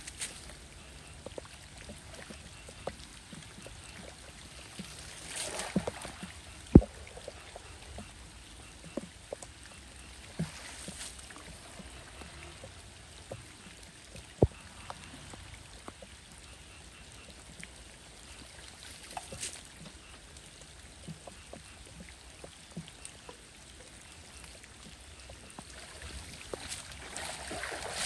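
Shallow floodwater trickling and splashing as handfuls of wet leaf debris are scooped off a street drain and tossed aside, with a few brief splashes and two sharp clicks. Near the end, a louder splash as a foot kicks through the water.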